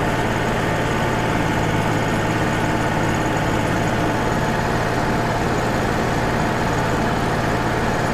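Wood-Mizer LT35 HD portable sawmill running steadily, its engine holding an even pitch.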